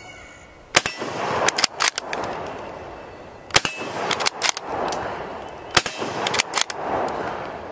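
Three shots from a bolt-action rifle firing 8mm Mauser rounds, about two to three seconds apart, each followed by a rolling echo. Smaller sharp cracks come between the shots.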